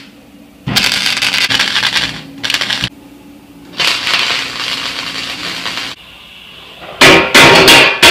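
Wire-feed welder arc crackling in two bursts of about two seconds each, over background guitar music. Near the end come several louder, shorter rushing bursts.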